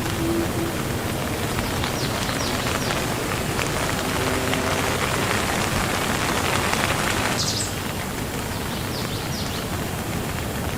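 Steady rain falling, an even hiss. A denser, louder stretch of the downpour ends abruptly about seven and a half seconds in, and a few faint short high chirps sound over it.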